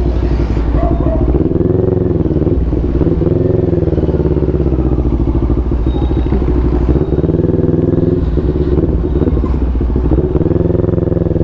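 CFMoto 400NK motorcycle's parallel-twin engine running while being ridden, its pitch rising and falling several times with the throttle.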